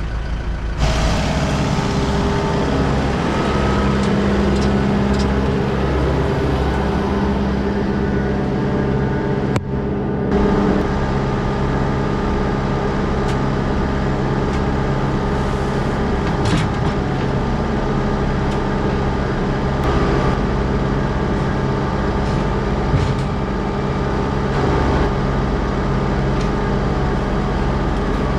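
Tractor engine running steadily, louder from about a second in, with a brief dip just before ten seconds.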